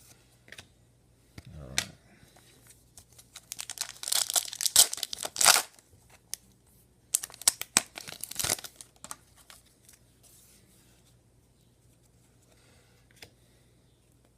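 A trading card pack wrapper being torn open and crinkled by hand, in two spells of tearing and crackling: one about four seconds in and another about seven seconds in, with a few light clicks of card handling around them.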